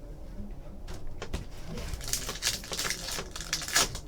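Trading cards and their packaging being handled: a few light clicks, then steady crinkling and rustling from about two seconds in.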